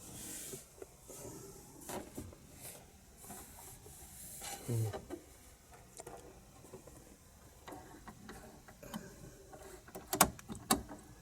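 Scattered handling noises in a vehicle cab: rubbing and rustling with many small clicks, the loudest two sharp clicks about half a second apart near the end.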